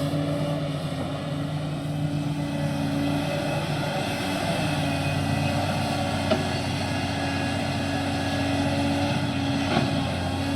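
Excavator's diesel engine running steadily, with two sharp knocks, one about six seconds in and one near the end.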